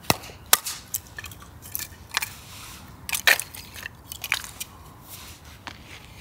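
Irregular sharp clicks and crunches, about a dozen over a few seconds, the loudest about half a second in and just after three seconds in.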